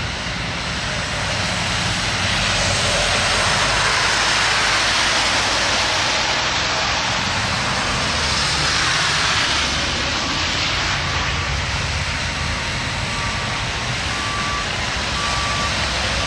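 Heavy trucks passing on a slushy, snow-covered road: tyres hissing through the wet slush over the rumble of diesel engines, swelling as trucks go by about two seconds in and again near the middle. A steady electronic beep repeats about once a second near the end.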